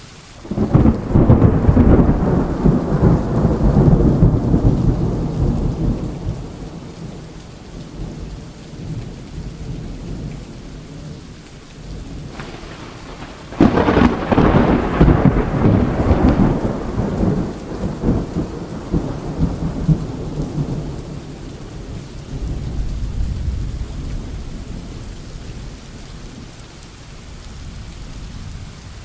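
Thunderstorm: steady rain with two long rolls of thunder. The first builds about a second in and fades over several seconds; the second starts with a sudden crack about halfway through and rumbles on for several seconds, followed by a fainter rumble.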